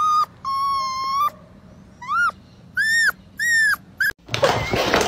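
A dog whining in a string of high-pitched whines: some short and arching up and down, one held level for nearly a second. About four seconds in it breaks off into a burst of loud noise.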